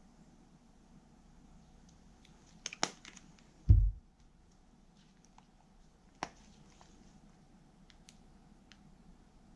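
Plastic squeeze tubes of seasoning paste handled on a kitchen counter: a few light plastic clicks, then a dull thump about four seconds in as a tube is set down, and another sharp click around six seconds. Otherwise quiet room tone.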